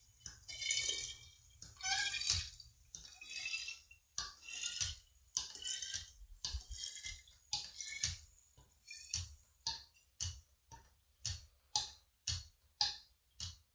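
Mead squirting through a hand-pumped mini siphon tube into a glass wine bottle in spurts, one spurt per pump stroke. The spurts come about once a second at first, then grow shorter and quicker, about two a second near the end.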